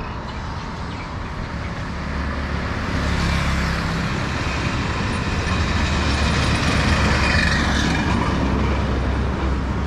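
Road traffic passing on a paved highway: motor vehicles, motorbikes among them, going by. It grows louder about three seconds in and is loudest a couple of seconds before the end as a vehicle passes close, over a steady low rumble.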